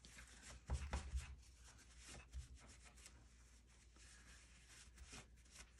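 Faint rubbing and light handling on a tabletop, with a few soft knocks about a second in: an inked rubber stamp being wiped clean.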